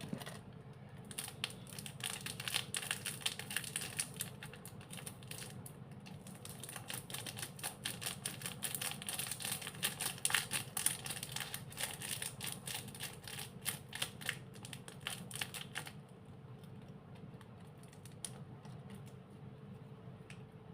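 Slime being squished and worked by hand: a dense run of small crackling clicks that thins out about three-quarters of the way through to a few scattered clicks.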